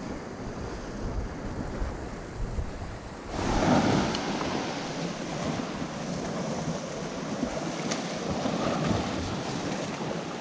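Ocean surf surging and washing over a rock ledge, with wind rumbling on the microphone. A louder wash comes in about three seconds in.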